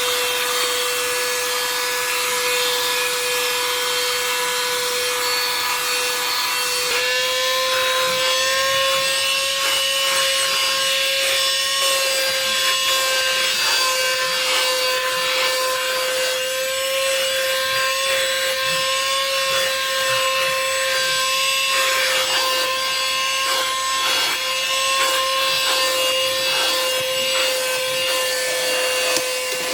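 XREXS cordless handheld vacuum cleaner running steadily: a high motor whine over rushing air, which steps up slightly in pitch about seven seconds in.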